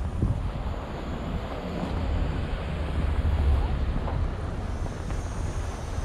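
Low rumble of outdoor city street ambience, swelling about three seconds in.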